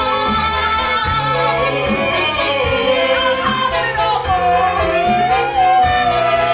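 Musical-theatre song: a high singing voice moves through a run of notes, then holds one long note with vibrato for the last couple of seconds. A band plays underneath, with a stepping bass line and percussion hits.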